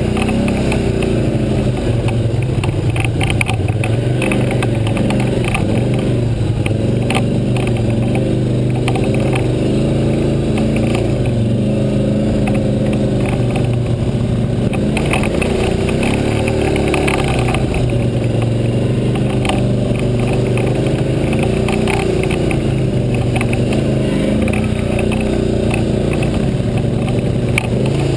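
ATV engine running steadily under changing throttle, its pitch rising and falling as it rides a rough dirt trail, with scattered clatter from the bumps.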